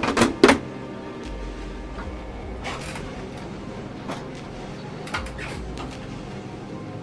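Two loud sharp clicks or knocks in quick succession just after the start, then a few fainter clicks spread through the rest, over a steady low hum.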